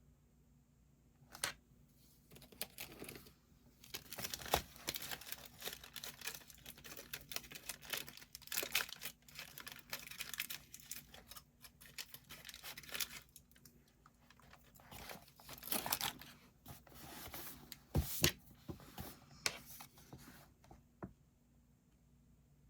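Irregular crinkling and rustling of a crinkly material being handled close to the microphone, with sharp crackles, loudest a few seconds in and again near the end. It starts about a second and a half in and stops about a second and a half before the end.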